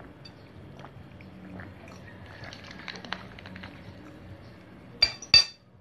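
Cat eating noodles: faint wet chewing and small smacking clicks. Near the end come two short, loud, sharp sounds in quick succession.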